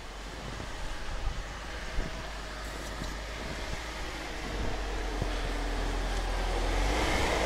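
BMW X5 with a 3.0-litre petrol inline-six driving through snow, its engine and the snow under the tyres giving a steady rumble. There are a couple of short knocks in the first two seconds, and it grows louder toward the end as the engine pulls harder.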